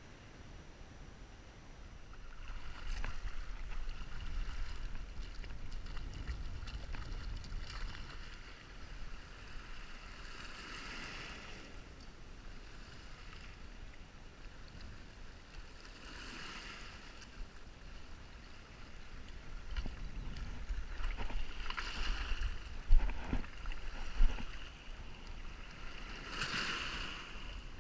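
Small waves splashing and washing over a stony shoreline at intervals of a few seconds, over a steady low rumble of wind on the microphone. Two sharp knocks stand out near the end.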